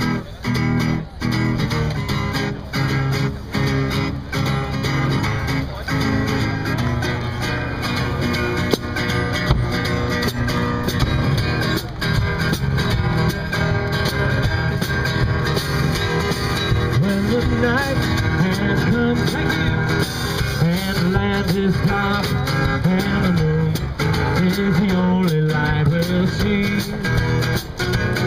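One-man band playing: strummed acoustic guitar chords with a steady beat, and from about halfway a melody line that bends up and down over the guitar.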